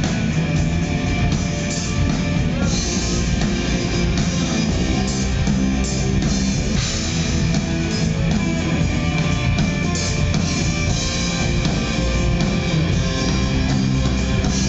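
Live rock band playing an instrumental passage: distorted electric guitar, electric bass and drum kit, loud and continuous.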